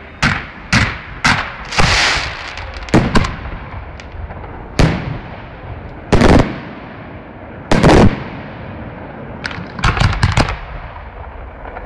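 Fireworks display: aerial shells and launches going off in loud, irregular bangs, about a dozen of them, the heaviest two around six and eight seconds in and a quick cluster of cracks near ten seconds.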